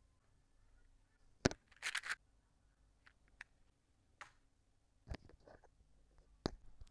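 Handling noise: a few sharp clicks and short rustles as small objects are set down and a clip-on lavalier microphone is picked up. The loudest click comes about a second and a half in.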